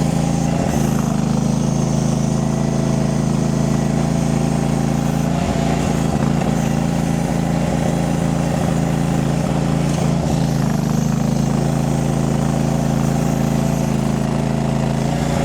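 Mini skid steer's engine running steadily while the machine tracks over loose dirt to pack it down.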